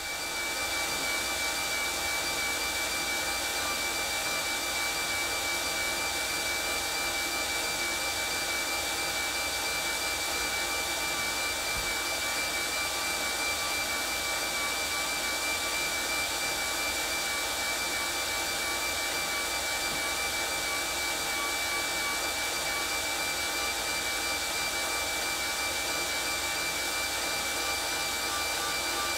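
Cyclus2 ergometer with the mounted road bike's drivetrain turning: a steady whirring hum with a thin, high, constant whine.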